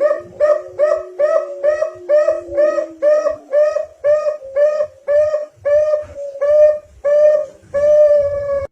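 Zebra dove (perkutut) song used as a lure call: a long run of about eighteen evenly spaced cooing notes, two to three a second, the last few drawn out longer and the final one longest. A faint low steady hum runs under the first half.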